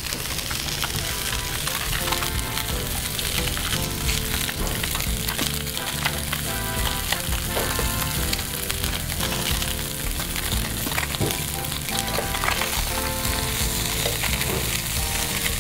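Salmon fillets searing in a little olive oil in a stainless steel skillet: a steady, even sizzle.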